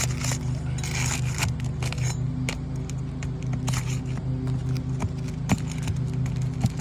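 Asphalt shingles being pried up and worked loose, with scraping, crackling and sharp clicks as the brittle shingles crack and nails give, over a steady low hum.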